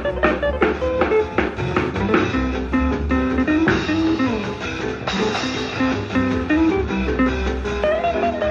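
Background music: a guitar playing a melody over a steady beat.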